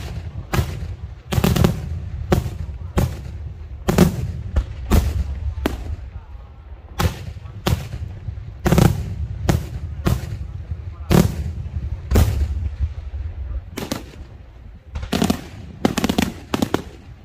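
Daytime aerial firework shells bursting overhead in a steady string of sharp bangs, about one to two a second, with a low rumble between them. A quicker cluster of bangs comes near the end.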